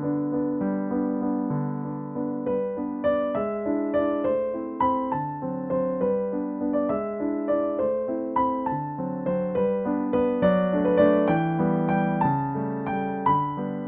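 Background piano music: a steady stream of struck notes over chords.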